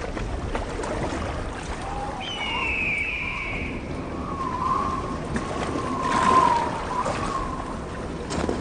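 Steady water-like rushing noise with several drawn-out, wavering tones and one higher falling call about two seconds in.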